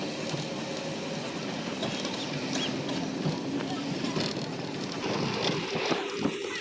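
Steady running noise of a moving bus, engine hum and road and wind noise, heard from inside at a window seat.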